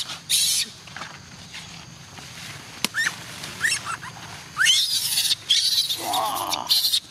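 Baby monkey squealing in short high-pitched bursts, with a few quick rising chirps between them and a lower, briefer cry about six seconds in.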